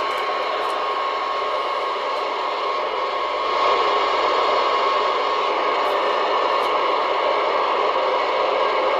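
Galaxy Pluto CB radio hissing with receiver static from its speaker, a thin steady whistle running through the noise. The hiss gets louder about three and a half seconds in, as a knob on the front panel is turned.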